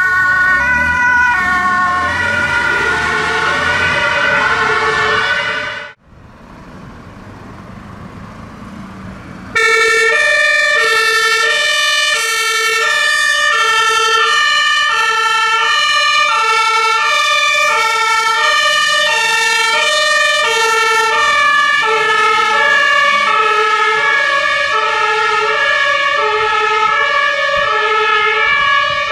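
German two-tone emergency siren (Martinshorn) on a Red Cross ambulance, alternating between high and low tones, cut off abruptly about six seconds in. A few seconds of quieter traffic noise follow. Then a loud two-tone siren from a Red Cross command vehicle starts suddenly and goes on, evenly alternating high and low, with a steady high tone under it.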